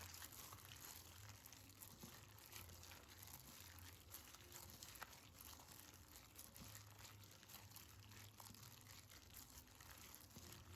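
Faint wet squishing and crackling of hands kneading sliced pork tenderloin with egg white and seasoning in a bowl.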